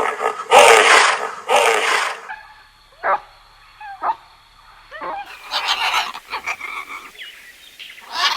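A dog barking: a few loud, harsh barks over the first two seconds, then short yelps and a run of high whimpering whines.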